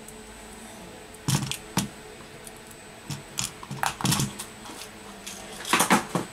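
Sharp clicks and taps in several short clusters as small tools and parts are handled on a phone-repair workbench, over a faint steady hum.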